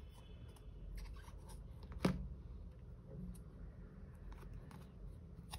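Small hard-plastic slime tubs being handled: scattered light clicks and taps of plastic, with one sharper knock about two seconds in.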